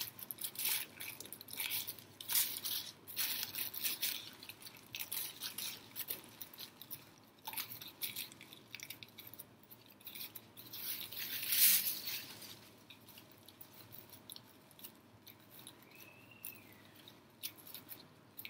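Scissors cutting through a thin plastic shopping bag, the plastic crinkling and rustling in short irregular crackles, loudest about two-thirds of the way through.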